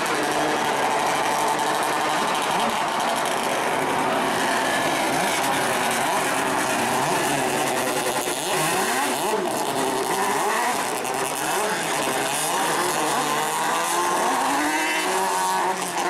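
A pack of race car engines running at low speed on the formation lap, their pitch wavering up and down as the drivers blip the throttles, over a steady hiss.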